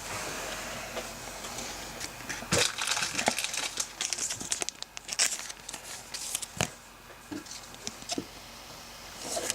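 Foil wrapper of a trading-card pack being torn open and crinkled: a hiss of tearing, then an irregular run of sharp crackles and rustles.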